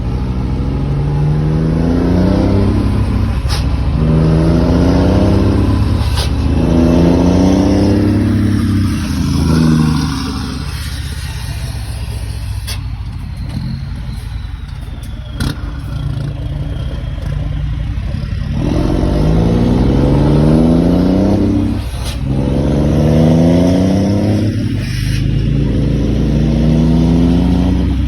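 Scania truck's diesel engine, loud and rumbling. It revs up again and again, each rising pull cut off by a quick drop, settles to a steadier lower run for several seconds midway, then resumes the repeated rising pulls.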